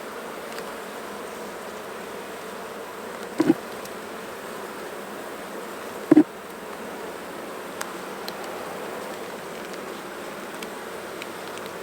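Honeybees buzzing steadily around an open hive, the colony a little upset by the inspection. Two brief louder sounds stand out, about three and a half and six seconds in.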